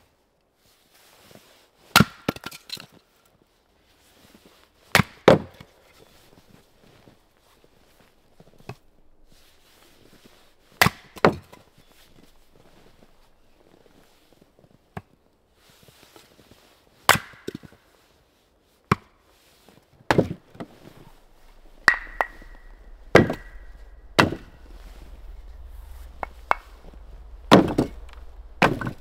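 Axe splitting firewood logs on a wooden chopping stump: single sharp strikes a few seconds apart, about ten in all, a few followed by a short ring.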